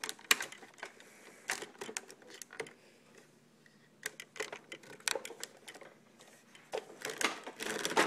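Irregular clicks, knocks and rustling from hands handling a hard plastic object right at the microphone, thickening into a busier rustle near the end; no motor is running.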